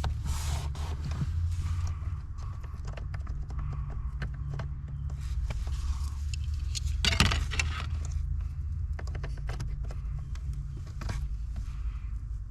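Small plastic clicks and rattles of automotive relays being handled and pushed in and out of a car's relay box, with a busier cluster about seven seconds in, over a steady low hum.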